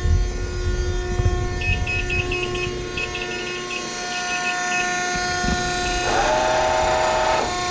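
Wysong hydraulic press brake humming steadily, with a run of short high beeps in the first half. About six seconds in, a steady two-tone whine lasts about a second and a half as the Hurco CNC back gauge jogs.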